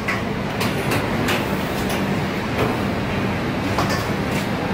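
Steady drone of commercial kitchen ventilation, with a low hum under it and a few light knocks and clatters.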